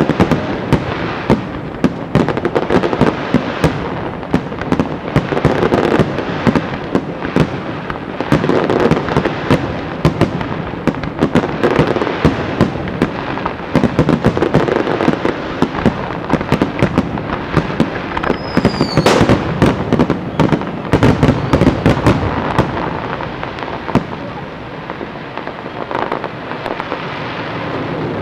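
Aerial fireworks display: a dense, continuous barrage of shell bursts, bangs and crackling, with a brief whistle about 19 seconds in.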